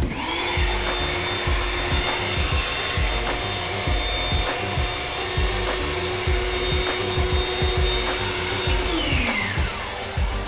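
Built-in electric air pump of an Intex Dura-Beam Deluxe airbed running as it inflates the mattress: it starts suddenly with a steady whine, runs evenly, then is switched off about nine seconds in and winds down with a falling pitch.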